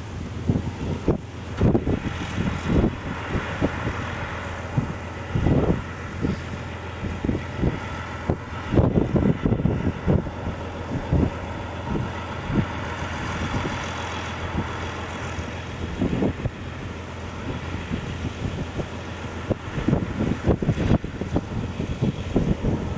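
V12 twin-turbo diesel engine of a 12-wheel ACO 600 tractor running steadily, with gusts of wind buffeting the microphone.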